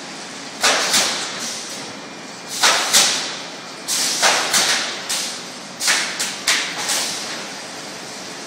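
Lisoaz LP1200 automatic pallet nailing line at work: sharp pneumatic shots, each with a short hiss of air. Two pairs come first, then a quicker run of about eight through the middle.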